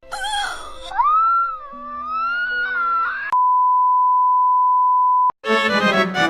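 Background music with a wavering, wail-like lead melody gliding over held notes, then a steady beep at one pitch lasting about two seconds. A brief silence follows, and a new piece of music with bowed strings and piano starts near the end.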